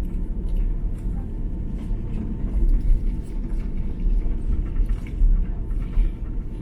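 Steady low rumble inside the cabin of an Airbus A330-300 taxiing on the ground after landing, with a few faint light ticks and rattles.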